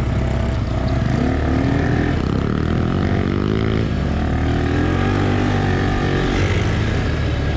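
Small ATV engines running at low speed, a steady drone whose pitch shifts a little up and down in the middle.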